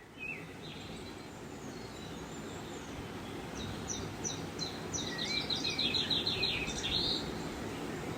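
Birds singing over a steady low background noise, with a fast run of repeated short chirps from about three and a half to seven seconds in.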